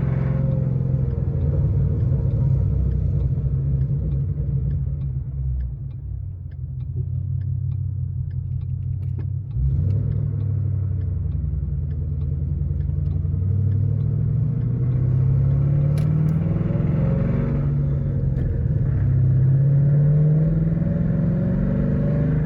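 2013 Ford Mustang GT's 5.0 Coyote V8 running. It dips in level for a few seconds, comes back abruptly around ten seconds in, then rises slowly in pitch. The owner says this engine has developed a rod knock.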